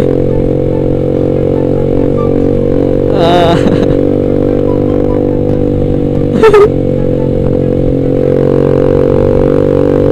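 Motor scooter engine running at a steady cruise, a constant low drone. A short wavering higher-pitched sound comes about three seconds in, and a sharp knock about six and a half seconds in.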